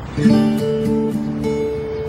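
Acoustic guitars playing: several ringing notes are plucked together about a quarter second in and sustain, with further notes changing over them.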